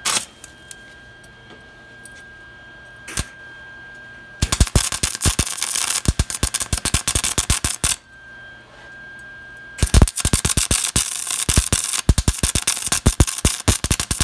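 MIG welder arc crackling on steel plate: brief arc strikes at the start and about three seconds in, then a steady fast crackle from about four seconds in, a pause of about two seconds, and the crackle starting again about ten seconds in.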